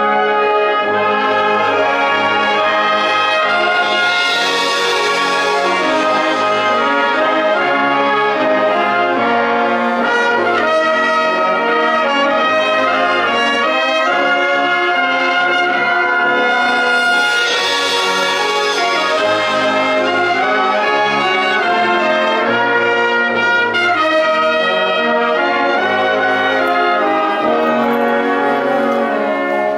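Concert wind band playing live, brass section with trumpets and trombones to the fore, in a full, steady passage of held and moving chords.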